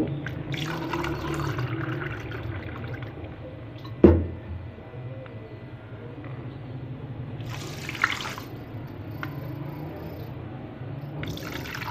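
Water poured from a glass jug into a plastic cup, and the cupful tipped into a karahi holding dal and chicken, splashing briefly about eight seconds in. A single sharp knock about four seconds in, and pouring into the cup starts again near the end.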